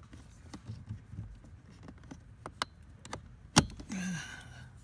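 Small plastic clicks and handling noise as the blower transistor's wiring connector is worked loose and unplugged, with one sharp snap about three and a half seconds in. A man's voice makes a short low sound just after.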